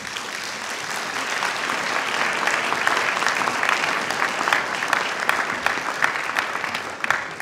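Auditorium audience applauding: many hands clapping at once, swelling over the first couple of seconds and dying away near the end.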